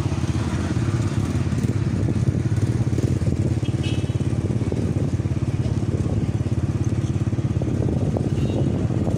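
Small motorcycle engine running at a steady cruising speed, its rapid firing pulses making a continuous low rumble, with wind rushing past.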